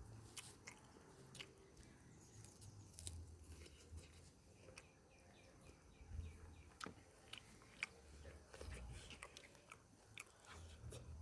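Faint close-up chewing of chicken liver and gizzard, with irregular sharp mouth clicks and smacks and soft low thumps of the jaw.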